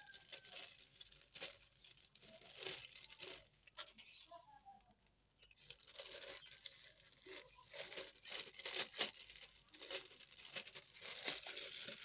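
Thin clear plastic bag crinkling and rustling in the hands as handfuls of mashed tempe bait are packed into it, in irregular bursts of crackle that ease off for a moment around four to six seconds in.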